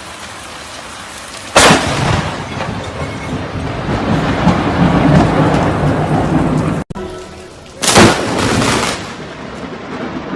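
Steady heavy rain with two close lightning strikes: a sudden sharp thunderclap about a second and a half in, followed by several seconds of rumbling, and another near the end.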